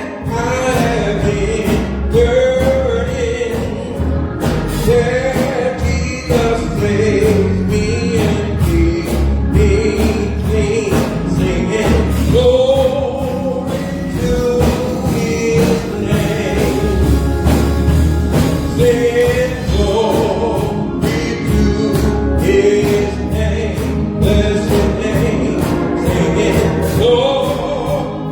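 Gospel song: singing over a band with a steady beat.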